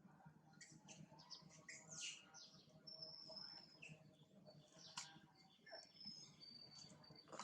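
Faint high-pitched chirps and short calls, some of them sliding down in pitch, with a thin steady whistle in the second half and a single sharp click about five seconds in.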